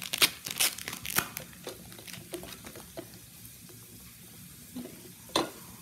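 Foil wrapper of a Pokémon booster pack crinkling and tearing as the pack is opened. The crackling is busiest for about the first second and a half, then fades to scattered small crinkles, with one more crackle near the end.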